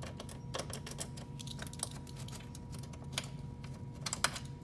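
Scattered light clicks and taps of small plastic under-tray fasteners being handled, with a quick cluster of clicks near the end, over a steady low hum.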